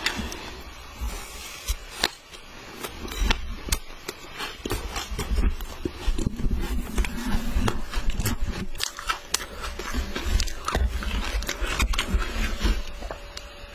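Shaved ice being chewed, crunching with many sharp cracks, and a spoon scraping and digging into a tub of shaved ice near the end.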